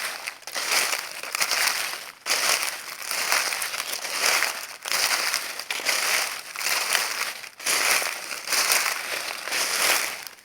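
Footsteps crunching through dry leaves: a steady walking pace of crackling, rustling steps, one roughly every second or so.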